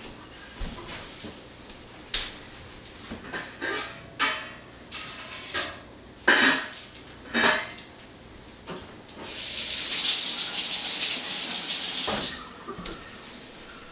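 A metal stockpot and its lid clanking on a stovetop: a string of sharp clinks and knocks. Then a kitchen faucet runs into the sink for about three seconds and shuts off.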